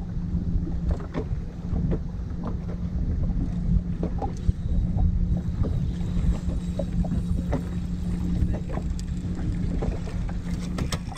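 Bass boat's outboard motor running steadily across the lake, with wind rushing over the microphone and frequent short slaps of the hull on the water.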